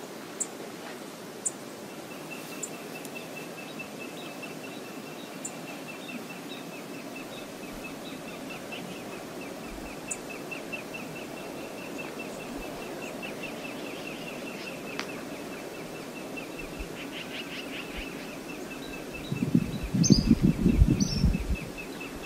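Steady outdoor noise of water and wind, with a bird's rapid run of short high notes repeated through most of it and a few sharp high ticks early on. Near the end, a couple of seconds of loud low rumbling, the loudest sound here.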